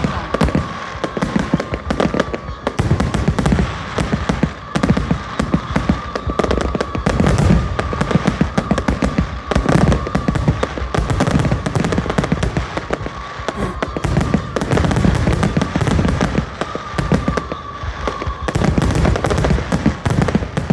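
Fireworks display: a dense, unbroken run of bangs and crackles, with deeper booms swelling in waves every couple of seconds and a steady, slightly wavering tone underneath.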